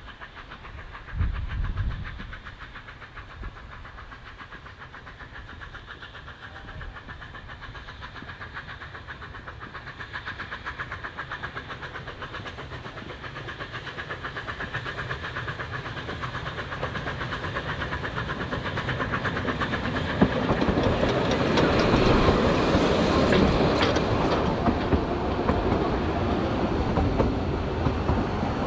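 Narrow-gauge steam locomotive approaching with a fast, even exhaust beat that grows steadily louder until it passes about twenty seconds in, then its carriages clatter past close by. A brief low thump about a second in.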